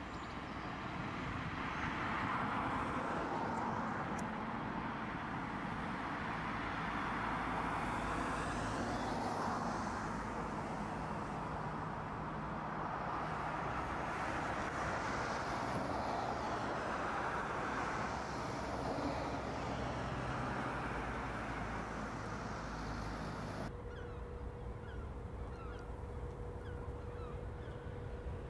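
City road traffic: cars passing in a steady rush of engines and tyres that swells and fades as they go by. About 24 seconds in it cuts to a quieter open-air background with a faint steady hum and scattered bird calls.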